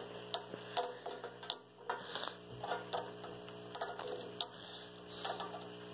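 Scattered light clicks and taps, a few a second at irregular intervals, over a faint steady hum.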